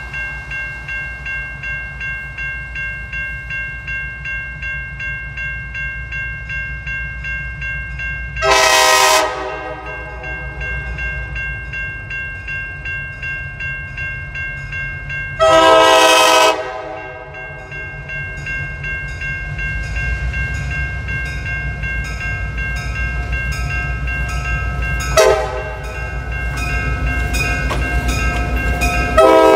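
Locomotive horn sounding the grade-crossing signal, long, long, short, long, the last blast running on. Under it a bell rings steadily at about two to three strokes a second, and the train's low rumble grows louder as it approaches.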